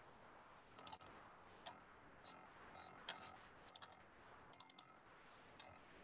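Faint, irregular clicks of a computer mouse and keys while a slide presentation is opened for screen sharing, about a dozen clicks in all with a quick run of four a little past the middle.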